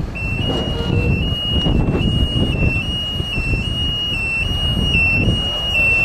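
A high electronic warning tone that steps back and forth between two close pitches, sounding steadily as the forage loader wagon's tailgate is raised. The low running of the tractor's engine is underneath.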